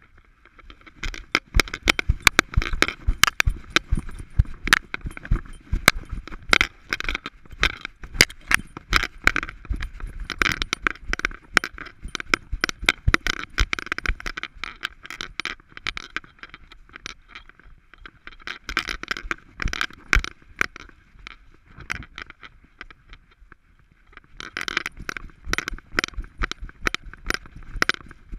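Harness and camera-mount hardware on a walking Alaskan Malamute's back clicking and jangling with her strides: a dense, uneven run of sharp clicks that eases off twice along the way.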